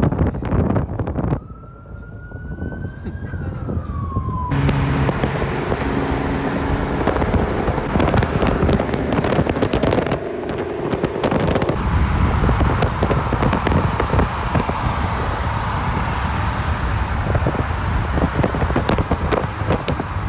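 A police siren gives one slow wail that rises and then falls, in the first few seconds, over loud engine and road noise from cars driving past.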